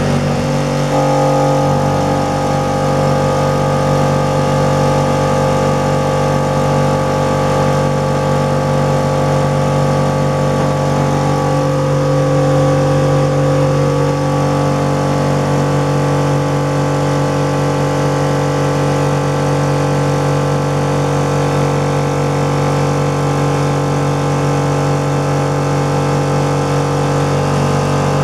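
Parkside 24-litre oil-lubricated piston air compressor running steadily on its first run, a constant droning whine as it pumps up its empty tank, with a slight shift in tone about a second in.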